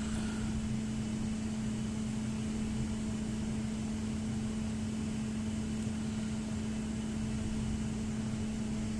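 Steady hum of running chiller plant machinery, with one constant low tone over an even mechanical noise.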